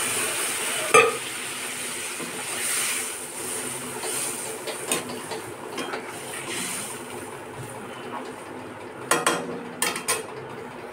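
Water sizzling in a hot metal kadhai of fried masala, loudest at first and then settling to a simmering hiss, while a perforated steel spatula stirs and scrapes the pan. There is a sharp clink about a second in and a few more near the end as the spatula knocks the pan.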